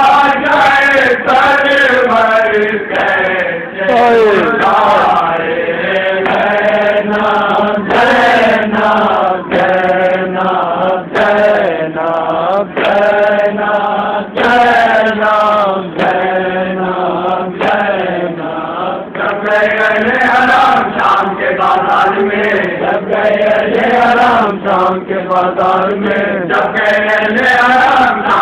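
Group of men chanting a Shia nauha lament in unison, in long sustained melodic phrases. Frequent sharp slaps of chest-beating (matam) keep time with the chant.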